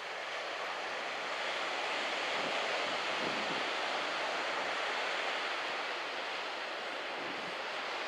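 Surf on a beach break: a steady rushing wash of waves that swells a little a couple of seconds in.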